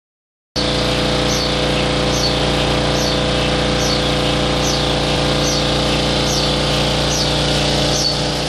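HTS DC induction heating machine running: an electric motor spins an S45C iron billet, glowing red-hot, through the superconducting magnet's field. The sound starts about half a second in as a steady machine hum of several held tones, with a short high falling chirp repeating about once every 0.8 seconds.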